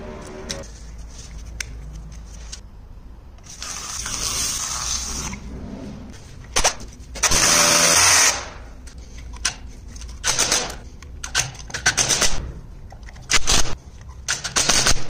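A power drill bores into concrete in two long runs, the second and louder one about 7 to 8 seconds in. From about 10 seconds on, a cordless drill-driver runs screws into the tap's mounting flange in a string of short bursts.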